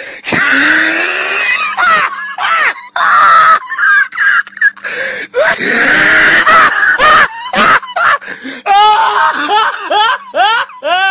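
A person's voice shrieking and wheezing with laughter in loud, breathy, high-pitched bursts, turning near the end into a quick run of short rising yelps.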